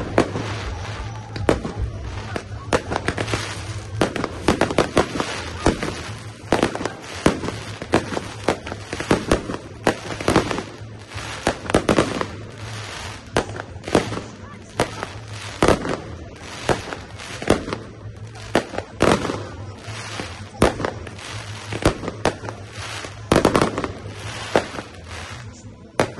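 Fireworks display: aerial shells bursting in a rapid, irregular series of sharp bangs, with crackling between them.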